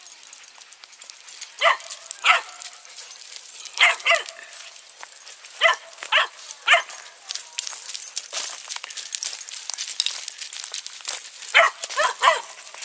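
A dog barking in short groups of two or three barks, about ten barks in all, with pauses of a second or more between the groups.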